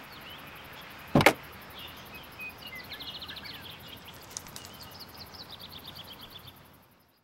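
A Hummer's door clunks open once, about a second in, over outdoor ambience; afterwards birds chirp in short runs until the sound fades out near the end.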